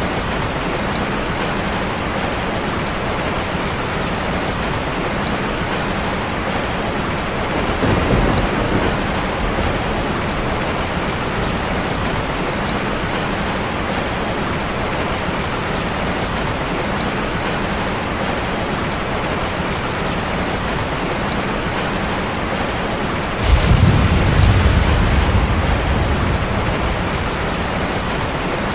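Steady heavy rain with thunder. A short low roll comes about eight seconds in, and a louder thunderclap near the end rumbles away over a few seconds.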